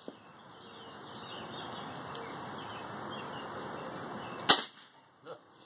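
A single shot from a Gamo Bone Collector Whisper .177 break-barrel air rifle about four and a half seconds in, one sharp crack as the pellet is fired at a plastic Coke bottle, over a steady low hiss.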